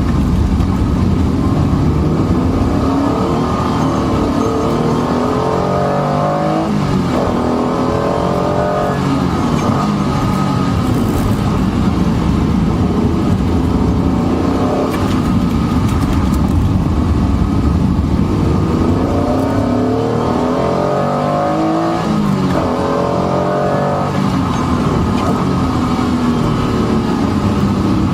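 Honda NSX-R's V6 engine being driven hard on a wet track. It revs up and drops back at each gearchange, running up through the gears twice, with steady engine and road noise between.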